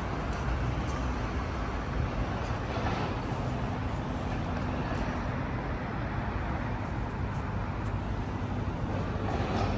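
Steady background noise of a busy railway station hall: a constant low rumble and hiss with indistinct distant voices.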